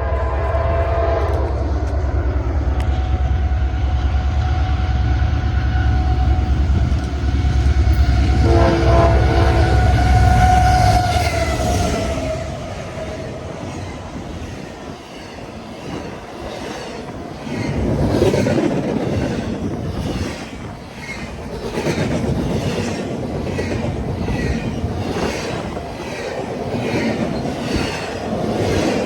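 CSX GE AC4400CW diesel locomotive's 16-cylinder engine running loud as it passes, its multi-chime horn sounding at the start and again about nine seconds in, the pitch falling as it goes by. After about twelve seconds the locomotive sound drops away and freight cars roll past with a steady clickety-clack of wheels over rail joints.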